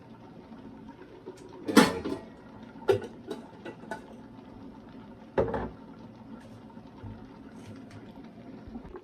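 Kitchen pot and utensils clanking, with three sharp knocks, the loudest about two seconds in, over a pot of soup simmering.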